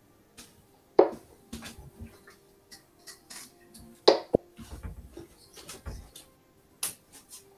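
Darts being handled at a bristle dartboard: a series of clicks and knocks, two of them sharp and loud, about a second in and about four seconds in.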